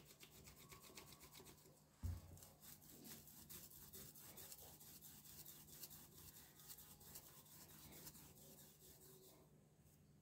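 Hands kneading and rolling a lump of wet multani mitti (fuller's earth) clay on a board: faint, quick, repeated rubbing strokes, with a soft thump about two seconds in.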